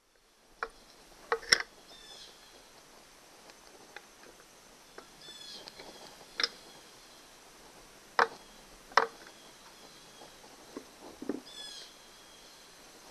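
A screwdriver and pliers clicking and knocking against the metal midsection housing of a 1999 Honda 8 hp outboard as it is pried loose: a handful of separate sharp clicks, the loudest about a second and a half in and twice near eight and nine seconds. A bird sings short trills of quick falling notes in the background three times.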